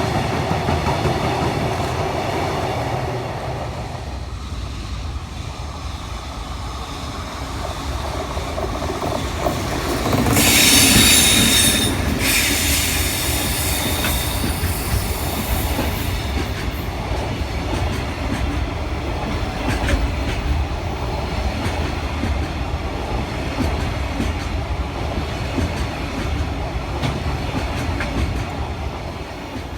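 Freight train rolling past with a steady low rumble of wheels and wagons. A loud, high-pitched squeal rises out of it for about two seconds near the middle, followed by faint clicking of wheels over rail joints.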